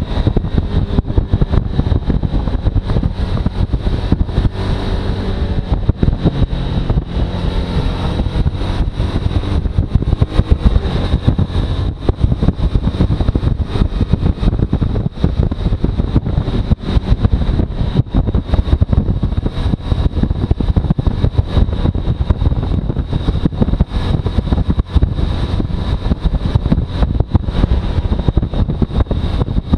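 Suzuki V-Strom motorcycle engine running steadily, a dense, rapidly pulsing drone with a thin steady high whine over it and a slight shift in pitch a few seconds in. This is the sound the owner calls bad.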